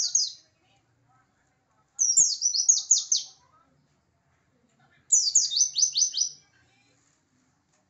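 Pleci (white-eye, Zosterops) singing its fierce, persistent song. There are two loud phrases of about a second and a half each, every one a rapid run of high, falling notes, separated by short pauses.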